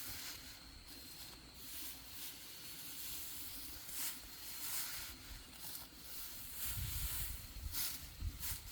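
Irregular rustling and swishing, like plants or straw being handled, with heavier low rumbles near the end and a faint steady high tone underneath.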